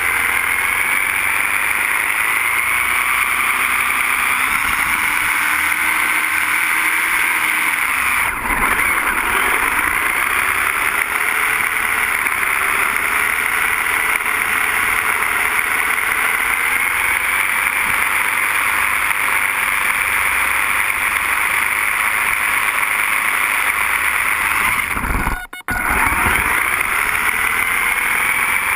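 Small RC car's motor and drivetrain whining as it drives, the pitch sliding up and down with speed, over steady rolling noise from the tyres, heard from a camera mounted on the car. The sound briefly drops out twice, shortly about eight seconds in and more deeply near the end.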